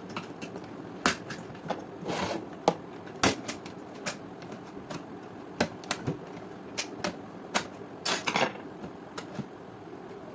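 Irregular clicks, taps and knocks, with two short scraping sounds about two seconds in and again near eight seconds: tools and plastic parts being handled while a steam iron is worked on.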